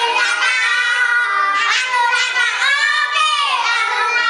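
Children singing together in high voices.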